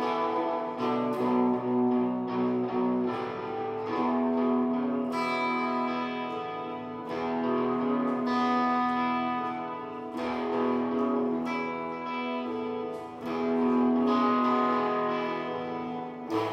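Guitar played slowly: notes and chords are struck about every one to three seconds and left to ring out between strikes.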